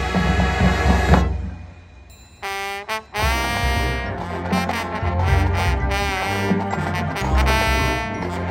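High school marching band playing: full band cuts off about a second in, then after a short pause the brass come in with sustained chords over low drums and the full band plays on.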